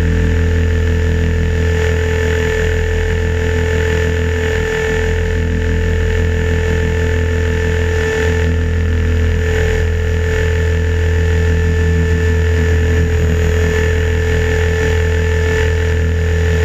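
Align T-Rex 550 electric RC helicopter heard from on board while hovering inverted: a steady whine from the electric motor and drive, over a strong low drone.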